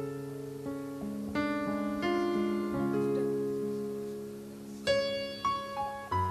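Electronic keyboard in a piano voice playing slow, sustained chords, a new chord struck every second or so, with a brighter, higher chord struck near the end.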